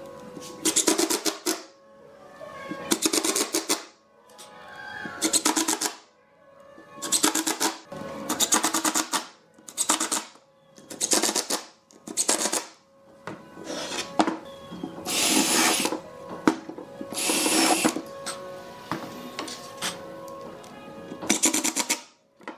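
Cordless impact driver driving wood screws into pine in a series of short bursts, its rapid hammering rattle starting and stopping about a dozen times, with two longer bursts near the middle.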